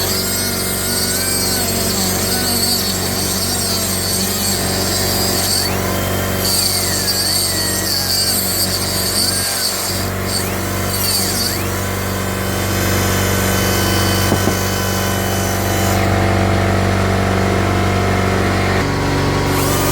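Central Pneumatic 1/8" air micro die grinder running at high speed while grinding into a steel bolt. Its high whine cuts out and comes back several times, over a steady low hum.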